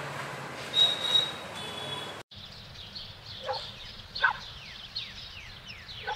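Background ambience that changes abruptly about two seconds in: a steady noisy bed with two brief high tones, then a quieter outdoor bed with birds calling, many short falling chirps and a few louder calls.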